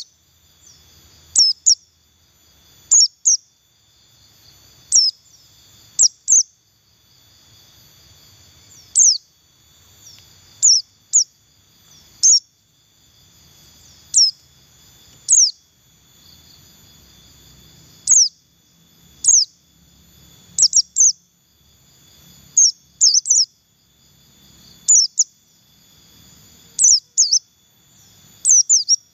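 White-eye (pleci) giving short, high chirps that sweep sharply downward, singly or in quick pairs and threes, every second or two. A faint steady high hum runs underneath.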